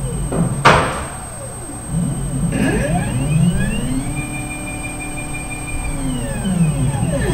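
Stepper motors of a CNC gantry machine whining as they drive a thread-laying head across a pin board. The pitch rises as the motors speed up, holds steady for a couple of seconds, then falls as they slow. A short, sharp noise comes a little under a second in.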